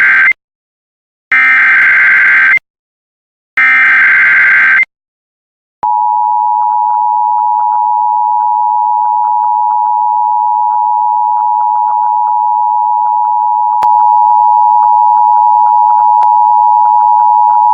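Emergency Alert System SAME header: the end of one harsh, buzzing data burst and then two more, each about a second long, a second apart. Then the steady two-tone EAS attention signal starts about six seconds in and holds for about twelve seconds. This is the digital alert header followed by the attention tone that announces a broadcast warning, here a tornado warning.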